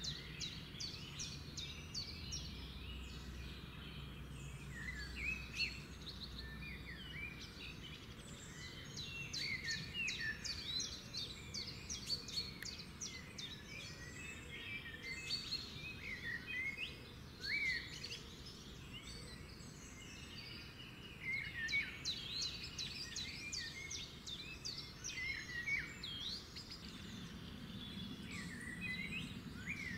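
Several songbirds singing and chirping at once in a dense, continuous chorus of short, quick notes, over a faint low background rumble.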